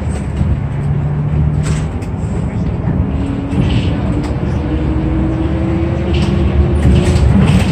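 City bus running, heard from inside the cabin: a steady low engine rumble with a whine that rises slowly in pitch from about three seconds in as the bus gathers speed.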